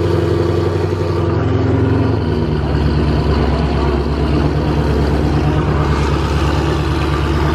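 Loud car engines running with a deep, steady drone; about two seconds in the drone changes to a different engine's steady note.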